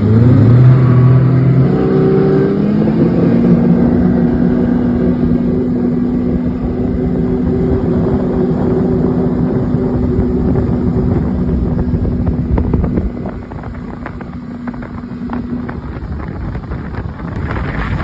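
Boat motor speeding up, its pitch rising over the first couple of seconds, then running steadily at speed with wind on the microphone. It becomes quieter about two-thirds of the way through.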